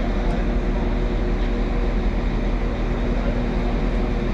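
Passenger train standing at a station platform and idling: a steady hum with a few held low tones.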